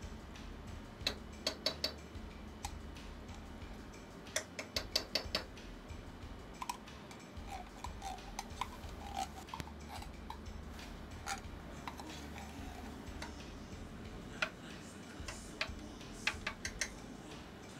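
A utensil clicks and taps against a tin can and a metal saucepan while tomato paste is scooped out, in quick runs of several sharp knocks with gaps between.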